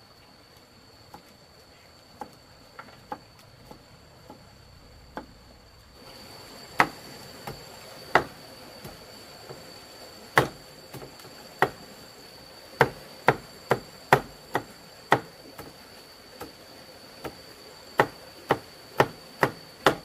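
Irregular chopping strikes, a blade hitting wood: faint and sparse at first, then louder and closer together from about six seconds in. A steady high insect drone runs underneath.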